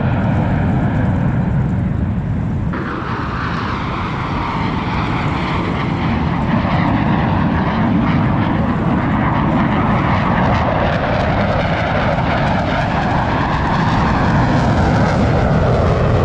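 Blue Angels jet aircraft flying past, a loud continuous roar of jet engine noise whose pitch bands slowly shift as the aircraft moves. The sound changes abruptly about three seconds in and grows a little louder near the end.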